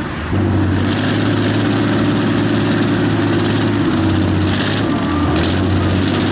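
Diesel engine of a PTS-M tracked amphibious transporter running steadily under way. It holds an even hum after a brief dip right at the start.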